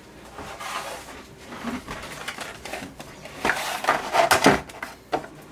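Handling noises of a ratchet set being brought out and shown: rustling with light knocks, then a quick run of louder clacks and clatters about three and a half to four and a half seconds in.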